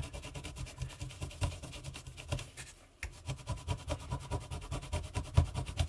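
Cloth wet with alcohol scrubbed quickly back and forth over a small copper circuit board, wiping off green polishing paste: a fast run of scratchy rubbing strokes with a brief pause about three seconds in.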